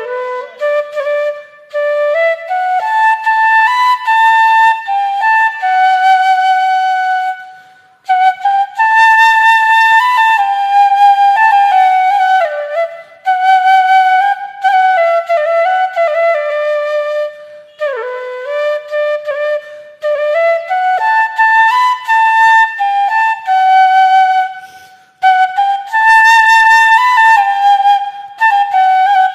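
Background music: a solo flute playing a melody in phrases, with short breaks between them.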